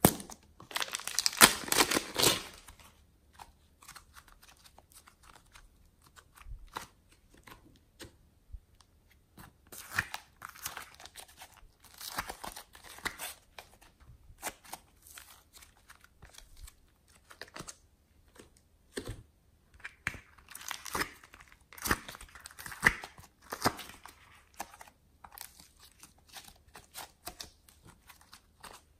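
Soft modelling clay being peeled from a thin plastic piping bag and torn apart by hand, with crinkling and tearing in fits of crackling. The loudest stretch of crinkling comes within the first couple of seconds, and quieter runs of tearing follow as the clay is pulled apart and squeezed.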